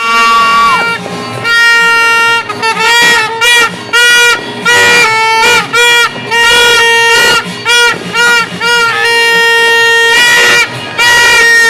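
Loud, buzzy horn tones blown in a rhythm of short toots and longer held notes, mostly on one steady pitch with a few higher notes.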